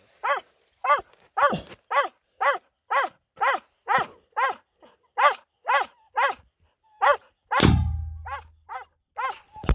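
Hunting dog barking steadily in short repeated barks, about two a second, baying at a badger. About seven and a half seconds in, a loud thud with a low rumble lasting about a second cuts across the barking.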